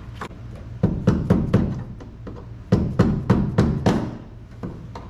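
Hammer driving a chisel against the metal retaining ring of a pickup's in-tank fuel pump, loosening it: two runs of quick, sharp metallic strikes, about four a second, each ringing briefly.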